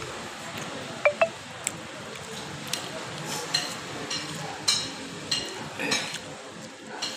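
Tableware clinking at a meal: two sharp, short ringing clinks of dishes about a second in, followed by a run of softer clicks and scrapes of eating.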